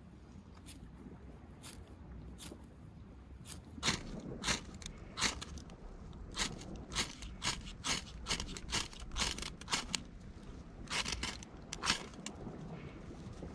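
Ferrocerium rod struck repeatedly with a scraper to throw sparks into fibre tinder: a series of sharp metal-on-rod scrapes, light and sparse at first, then harder and quicker from about four seconds in.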